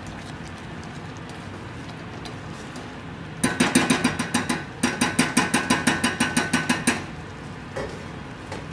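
Spatula knocking rapidly against a stainless-steel saucepan as tomato sauce is stirred briskly, about six knocks a second with a faint metallic ring, lasting about three and a half seconds midway. One softer knock follows near the end.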